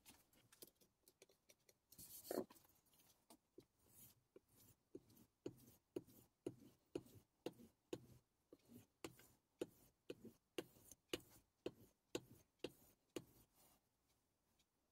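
Faint, regular strokes of a Deba knife's blade drawn across a stropping block, giving soft ticks at about two a second as the finished edge is stropped. A single soft knock comes about two seconds in.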